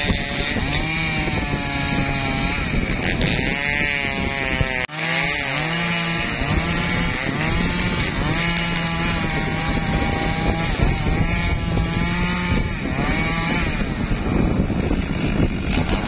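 Two-stroke chainsaw running continuously, its engine speed rising and falling as it works through teak wood.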